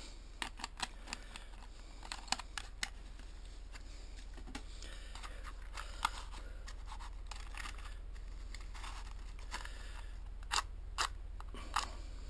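Light clicks and short scrapes of small objects being handled by hand beside a meths burner, with a box of matches picked up; a few brief louder scrapes come near the end.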